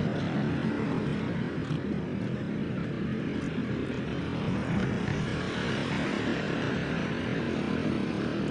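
Steady low rumbling noise without any sudden events.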